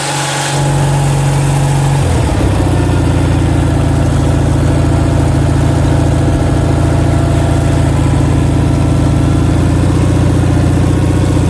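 Onan CCK two-cylinder air-cooled engine running steadily on a prototype aftermarket carburettor fuel-system kit. Its note shifts about two seconds in, then holds an even speed.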